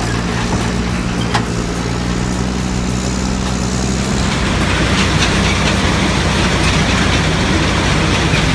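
Heavy diesel machinery running: a steady low engine drone under a dense grinding, rattling noise that thickens about halfway through. One sharp knock comes about a second and a half in.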